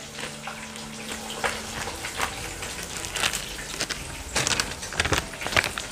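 Scattered light clicks and knocks of kitchen utensils being handled, over a faint steady hiss.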